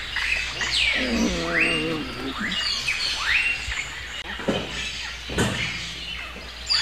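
Birds chirping: a run of quick falling chirps, roughly one to two a second, with a short pitched voice-like call about a second in.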